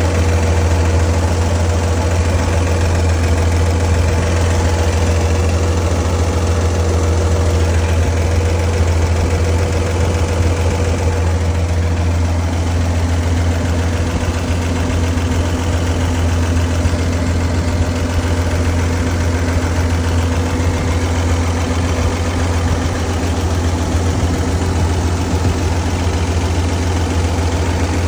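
Dodge Power Wagon engine idling steadily.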